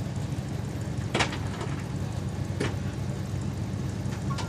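A steady low engine rumble, with two short sharp knocks about a second and two and a half seconds in.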